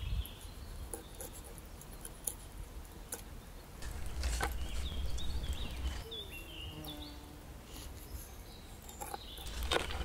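Knife and cleaver knocking a few times on a wooden cutting board as a mackerel is cut up. Birds chirp briefly about halfway through, over a low rumble.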